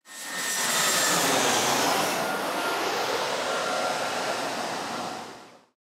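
Loud rushing roar of aircraft engine noise, starting suddenly and fading away near the end.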